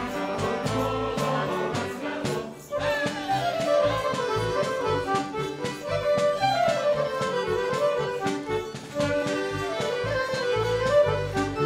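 Live Serbian folk dance music played by an ensemble: quick melody runs that fall in pitch, repeating several times, over a steady beat.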